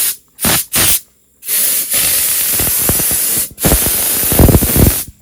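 High-pressure spray blasting down the truck's frame in trigger-controlled bursts: two short bursts, then two long blasts of about two seconds each.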